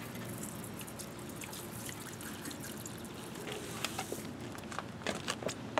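Water from a garden hose spray nozzle rinsing a car's wet alloy wheel and tyre, a steady splashing rush with scattered sharp drips and splashes.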